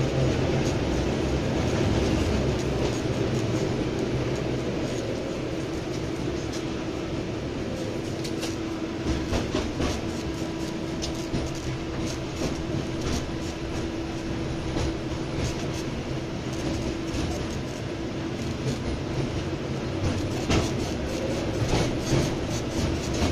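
Inside a 71-619 tram car running along the track: a steady rumble and hum, with frequent clicks and knocks of the wheels on the rails, thicker in the second half.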